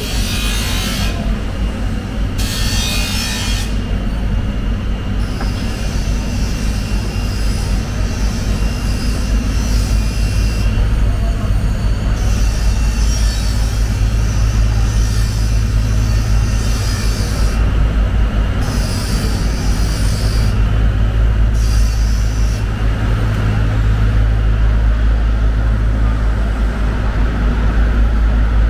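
Electric grinder running with a steady low hum while a large fish-cutting knife is ground on it. The blade goes against the wheel in a series of passes of a few seconds each, each giving a high scraping hiss, with short rough scrapes near the start.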